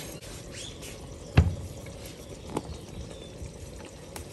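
Groundnut and egg stew simmering under the lid of an enamelled cast-iron pot, a low steady sound, with a sharp knock about a second and a half in and a lighter one a little past halfway.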